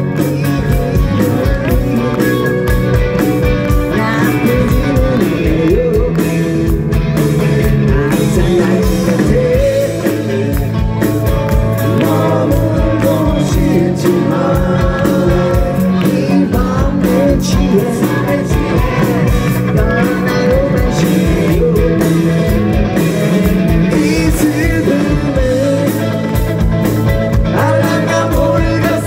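Punk rock band playing live: drums with a steady beat, bass and electric guitar, with singing over it.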